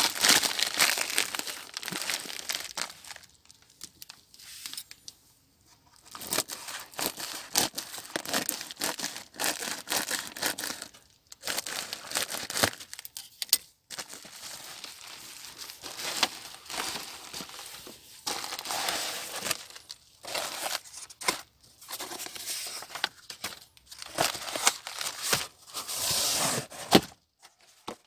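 Plastic bubble-wrap packaging of a book mailer being torn open and crinkled by hand, in irregular rustling bursts with short pauses between them.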